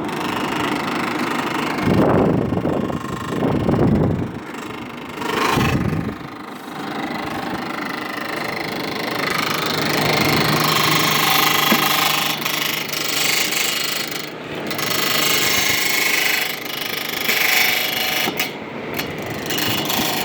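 Fan of a late-1960s to early-1970s Whirlpool window air conditioner running on the fan-only setting, a steady mechanical whir. There are a few louder low surges in the first six seconds, and a low hum comes in about ten seconds in.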